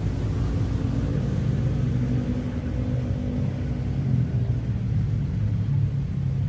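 Steady low rumble of a motor vehicle's engine running, its pitch bending slightly midway.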